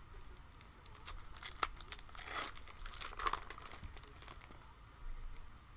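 Foil trading-card pack wrapper being torn open and crinkled by hand: a run of sharp crackles, busiest around the middle.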